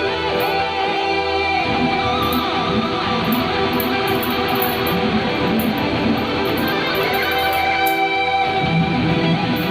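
Electric guitar played through a Zoom G5n multi-effects processor set to delay and reverb, notes ringing on and overlapping into a continuous wash. A low held note drops out about a second and a half in.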